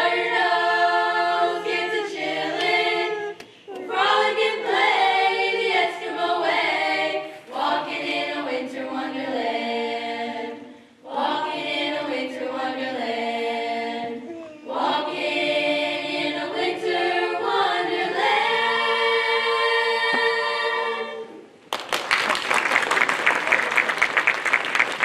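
A high school choir singing a Christmas song in phrases with short breaks between them; the last phrase ends about 21 seconds in and the audience breaks into applause.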